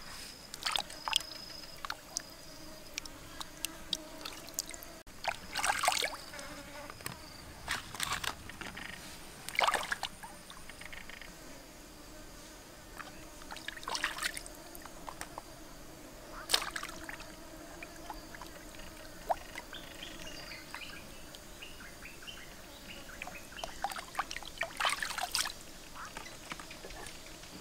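Steady buzzing of insects, with short splashes of water at intervals as food is washed by hand in a shallow stream.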